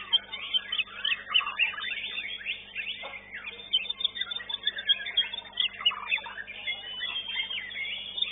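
Many caged songbirds singing at once: a dense, continuous tangle of overlapping chirps, whistles and quick rising and falling phrases, over a faint steady hum.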